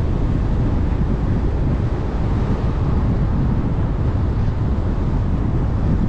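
Steady low rumble of wind buffeting the microphone together with road and tyre noise from a Jeep Trailhawk driving at speed.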